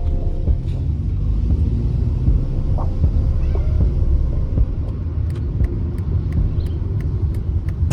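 Steady low rumble of a car on the road, with no music over it.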